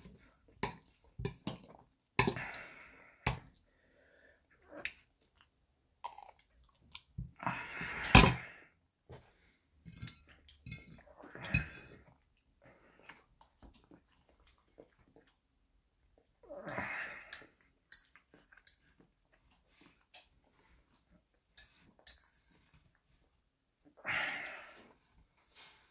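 Close-miked eating: chewing and mouth sounds, with a knife and fork clicking and scraping on a plate. A handful of louder, breathy sounds about half a second to a second long come every few seconds, the loudest about eight seconds in.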